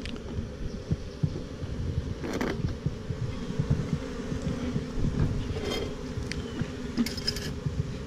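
Honey bees buzzing steadily around an open hive, with a few brief scraping knocks of wooden hive frames being handled.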